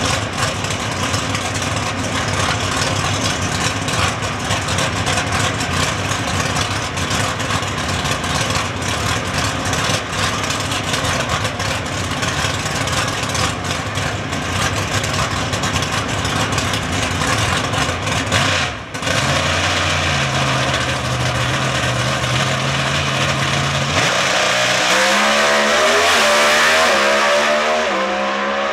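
Full-bodied drag-racing car's engine running loud and rough at the starting line. After a brief drop it holds a steady low tone, then about 24 seconds in it launches, the revs climbing in several rising sweeps as it accelerates down the strip.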